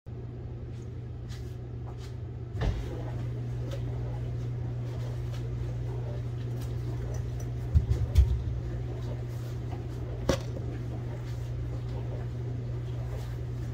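Kitchen items being handled over a steady low hum: a knock about two and a half seconds in, a quick cluster of louder knocks around eight seconds, and another knock about ten seconds in.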